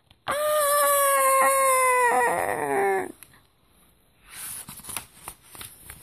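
A child's voice letting out one long, loud "Aaaaaagggh!" scream, held on one high pitch for nearly three seconds and dropping at the end. Then comes the soft rustle of a book page being turned.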